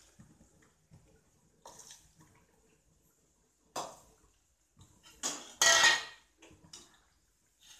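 Steel bowl and metal kitchen utensils clinking and clattering in a handful of separate bursts, the loudest and longest about six seconds in.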